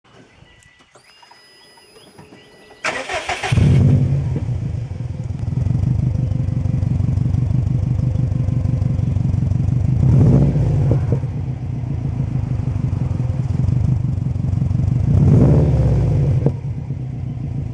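2004 Subaru WRX's turbocharged flat-four, heard at the Magnaflow cat-back exhaust tip with a COBB downpipe, cranked on the starter and catching about three seconds in, then idling with a steady low rumble. The engine revs briefly twice, near the middle and near the end.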